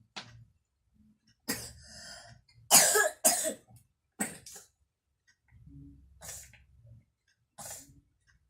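A young child coughing several times, in short separate bursts, with the loudest two close together about three seconds in. The child is still ill with a cough and cold.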